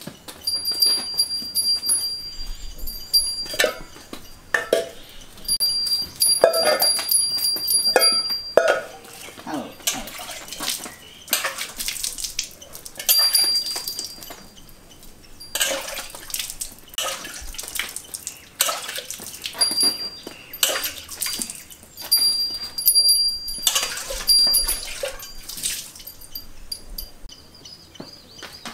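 A desi cow being milked by hand: squirts of milk striking a pot in quick, irregular strokes. A thin high tone comes and goes.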